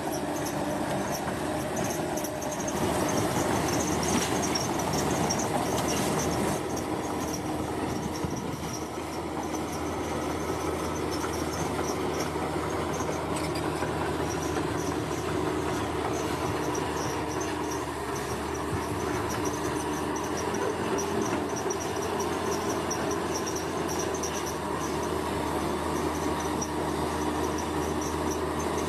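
Heavy construction machinery running steadily, a low diesel drone with a slight swell a few seconds in, over a high, fast, pulsing chirp.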